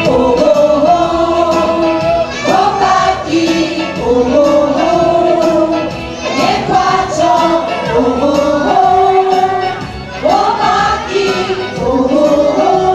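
A group singing a song together to strummed guitars and ukuleles, with a steady beat.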